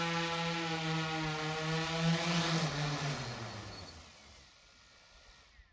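DJI Inspire 1 quadcopter's propellers buzzing steadily as it comes in to land, then, once it is down, the motors spin down with a falling pitch and stop about four seconds in.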